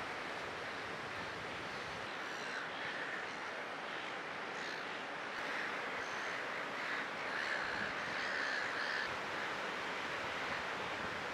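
Steady wash of breaking surf and wind, with birds calling on and off through the middle.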